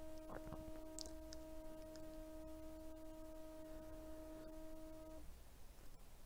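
Faint, steady 315 Hz test tone with its overtones, played from a tracking-test track on an Ortofon test record, cutting off suddenly about five seconds in. A few faint clicks come in the first second and a half.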